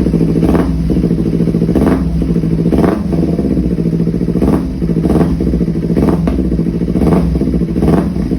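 Kawasaki Z250 engine idling through an AHM M3 slip-on exhaust: a steady, unchanging note with a brief puff from the exhaust roughly once a second.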